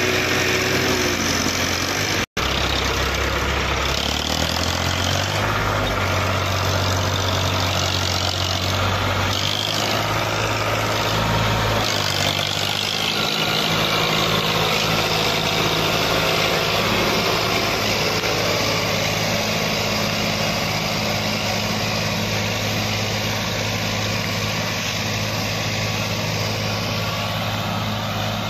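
Farmtrac 60 tractor's diesel engine running under load, hauling a trolley loaded with paddy out of a soft harvested field. Its engine note shifts a few times, around four seconds in and again near twelve seconds, with a momentary cut-out of the sound about two seconds in.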